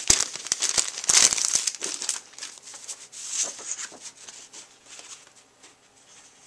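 Clear plastic wrapping crinkling and crackling as a paper pad is handled. It is loudest in the first two seconds, then thins to fainter, scattered crackles.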